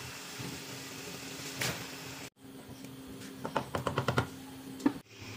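Metal spoon clinking and scraping against an aluminium cooking pot while a curry is stirred, with a quick run of clinks a little past halfway, over a steady low hum.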